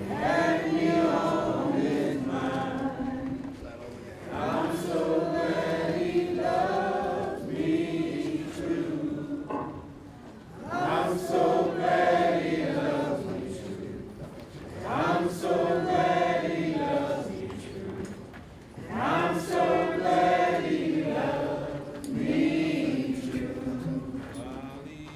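Congregation singing a song together in phrases of a few seconds each, with short breaks between them.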